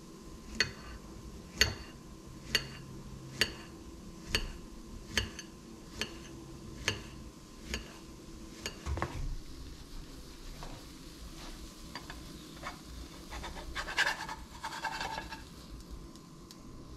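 Knife slicing a banana on a ceramic plate, the blade clicking sharply against the plate about once a second, nine or ten times. About fourteen seconds in, a louder scrape and clatter of a spatula lifting a pancake out of a frying pan.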